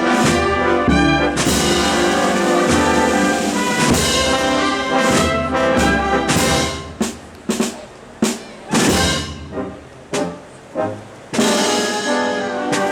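A Spanish processional wind band (banda de música) with prominent trumpets and trombones playing a Holy Week march. About seven seconds in, the music breaks into short, separate accented chords, and the full band comes back in near the end.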